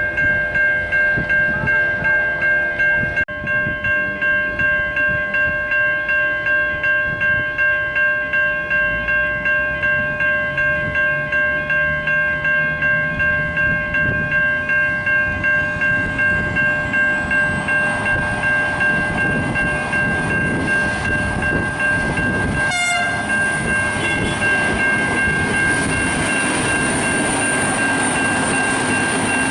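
Railway level crossing bells ringing at about two strikes a second as a V/Line VLocity diesel train approaches and passes over the crossing. The train's noise swells about two-thirds of the way through and drowns out the regular pulse of the bells, with a brief sharp sound just before it.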